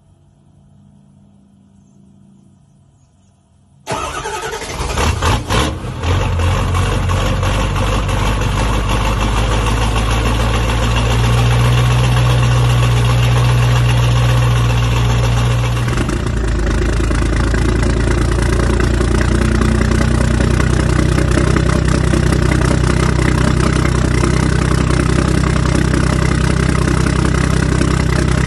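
A diesel pickup engine, a Ford Super Duty's, cranks and fires about four seconds in, stumbling through a few surges, then runs fast and steady. About halfway through the sound drops to a lower, steady idle.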